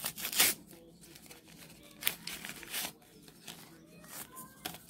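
A paper tea bag envelope torn open by hand and crinkled as the tea bag is pulled out: a loud rip in the first half second, a second rustling tear about two seconds in, and a short crinkle near the end.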